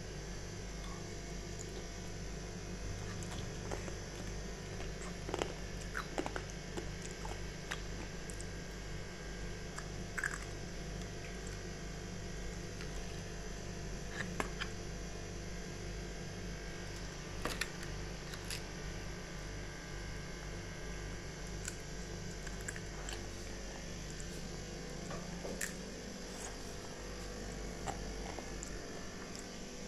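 Steady low mechanical hum, with scattered light clicks and taps as a plastic ice cube tray of ice is handled.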